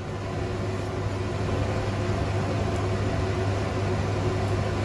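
Steady whirring of a kitchen fan with a low electrical hum underneath.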